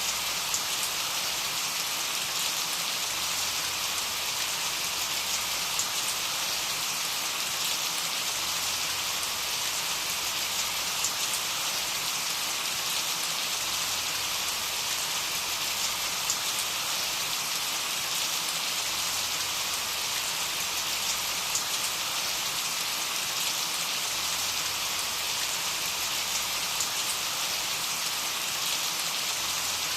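Steady rain falling: an even hiss of rain with scattered fine drop ticks throughout.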